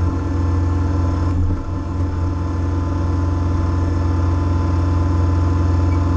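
Kubota BX25 sub-compact tractor's three-cylinder diesel engine running steadily while it powers the backhoe's hydraulics during digging.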